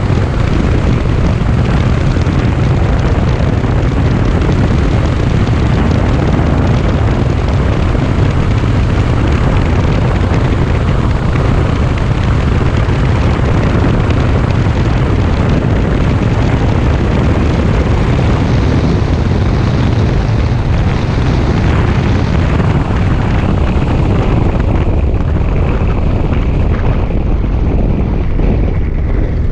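Cessna light aircraft's piston engine and propeller running at steady power: a loud, even drone.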